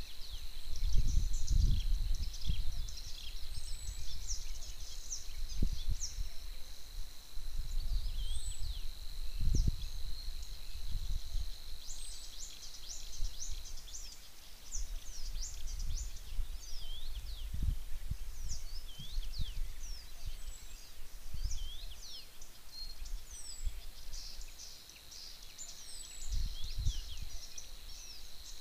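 Several songbirds singing and chirping in a spring meadow, over low gusting rumbles of wind on the microphone. A steady high whine runs under the birdsong, drops out about halfway and returns near the end.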